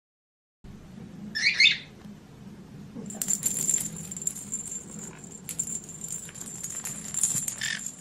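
A small bird's jingle ball being pushed and chased across a carpet by a conure: the bell inside rings and rattles in quick, irregular jingles from about three seconds in. A short, loud bird chirp comes about one and a half seconds in, and another shorter one near the end.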